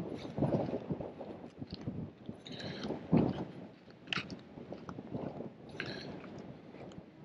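Wind buffeting the microphone in irregular gusts, with a few scattered short clicks.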